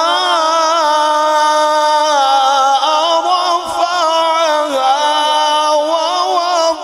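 A man reciting the Quran in the melodic tilawat style, drawing out long vowels in one continuous, ornamented line that wavers and slides up and down in pitch.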